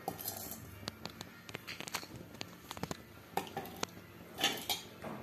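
Slotted steel spoon clinking and scraping against a kadai as fried almonds are scooped out, a scatter of light clicks with a few louder scrapes.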